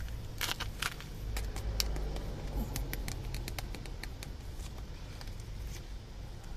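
Thin plastic food tub handled and tipped, crackling and clicking sharply as wet food is shaken out of it, over a steady low rumble.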